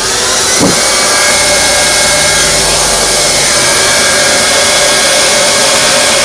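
Hot-air heat gun switched on and running, a loud, steady blast of air with a fan whine, building up over the first second, as it heats TPO roofing membrane for heat-welding.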